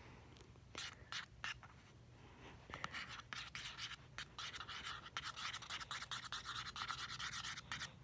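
A bobby pin scraping and clicking against cardboard while stirring paint into thick soap: a few separate scrapes at first, then quick continuous scratching from about three seconds in until shortly before the end.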